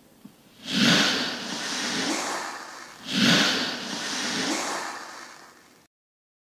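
Moulded play sand being squeezed and crumbled apart by hand: two long hissing, crumbling swells, each about two to three seconds, the second starting about three seconds in.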